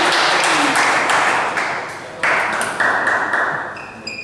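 A small crowd of spectators applauding a won point in a table tennis match; the clapping thins out and fades away over the last second or so.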